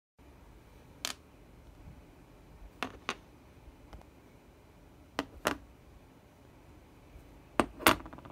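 Beyblade Burst parts (chip, metal disc and layer rings) being set down one at a time on a cloth-covered surface: sharp clicks and taps, several in close pairs, about seven in all, the loudest near the end.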